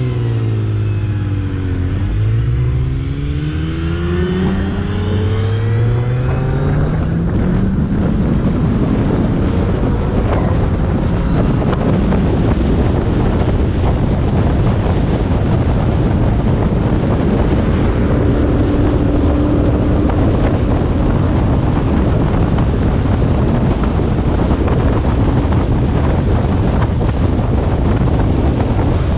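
Ford GT's supercharged 5.4-litre V8 accelerating hard, its pitch climbing over the first several seconds. After that a steady rush of wind and road noise on the hood-mounted camera covers most of the engine as the car cruises.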